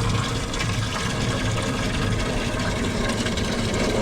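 Water running steadily as a homemade chicken waterer is filled.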